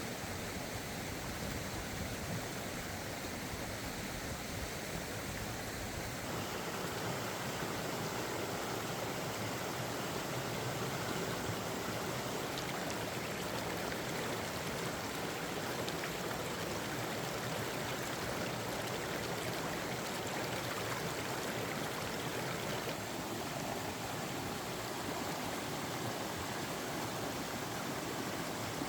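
Mountain stream flowing steadily, a continuous rush of water. The sound shifts a little about six seconds in and again later on.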